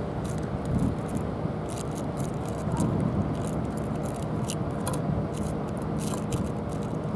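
Steady outdoor background noise: a low rumble with a faint steady hum under it, and scattered small clicks and ticks.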